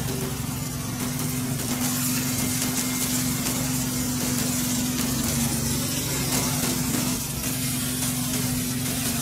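A steady machine hum with a constant high hiss over it.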